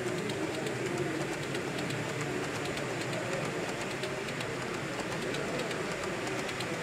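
Model train coaches rolling along the track: a steady rolling noise with faint, rapid clicking of the wheels.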